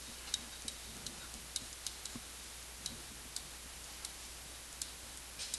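Faint, irregular clicks of a stylus tip tapping on a pen-tablet surface as words are handwritten, about a dozen over a few seconds.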